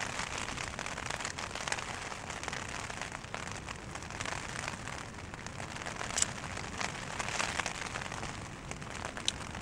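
Rain falling on a tent flysheet, heard from inside the tent: an even hiss made of many small taps, with one sharper tap about six seconds in.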